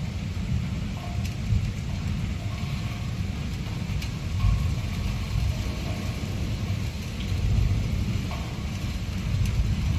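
Thunder rumbling in long, low rolls that swell about four and a half seconds in and again near eight seconds, with a few light ticks of rain against the window glass.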